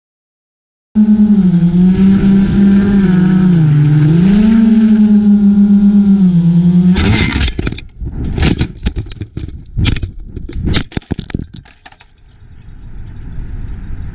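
GoPro Karma quadcopter's motors and propellers whining steadily in flight, starting about a second in, the pitch dipping briefly and coming back. About seven seconds in the drone crashes with a loud smash, followed by a run of sharp clattering knocks as it tumbles down, then a low steady noise.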